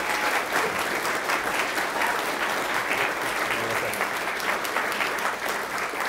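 A crowd of guests applauding steadily, many hands clapping at once.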